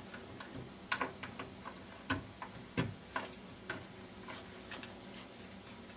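Light, irregular clicks and taps from handling a flat IDE ribbon cable and fitting its plastic connector onto the motherboard header, the sharpest about a second in and near three seconds.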